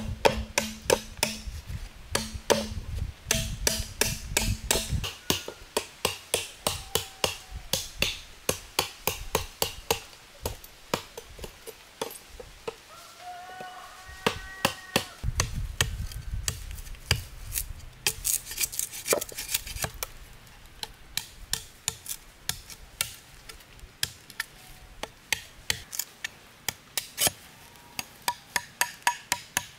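Rapid, evenly repeated blows of a hand tool chopping or hammering into wood, about two to three strikes a second, with a short lull about halfway through.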